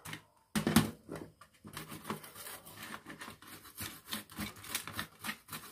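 Small brush scrubbing a printed circuit board wet with thinner, a rapid run of short scratchy strokes, cleaning the freshly soldered switch joints. A couple of sharp clicks come about half a second in.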